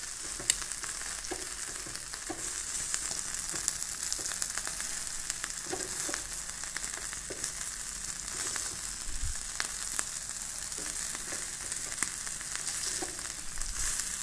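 Butter-basted chicken pieces sizzling and crackling on a hot perforated grill plate, with metal tongs now and then knocking against the pieces and the plate as they are turned.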